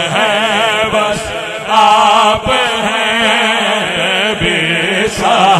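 A man sings a naat through a microphone and PA system, holding long, wavering melismatic lines with heavy vibrato over a steady low drone.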